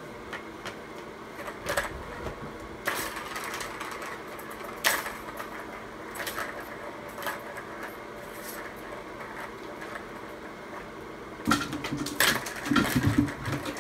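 Plastic balls rolling and clacking around the tracks of a tiered ball-track cat toy as a kitten bats at them: scattered clicks and rattles, with a louder, denser run of rattling and some thumps near the end.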